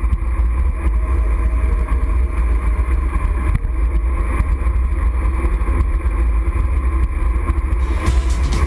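Wind buffeting the microphone of a bike-mounted action camera at road-bike riding speed: a loud, steady rumble with tyre and road noise mixed in. About eight seconds in, a regular beat begins over it.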